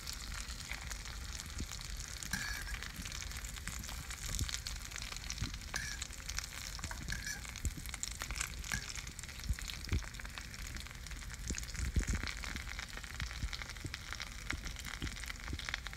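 Breaded spadefish fillets frying in butter in a nonstick pan: a steady sizzle dotted with many small pops and crackles.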